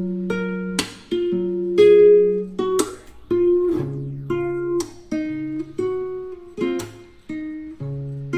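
Background music: an acoustic guitar playing single plucked notes and chords, about one a second, each ringing out and fading.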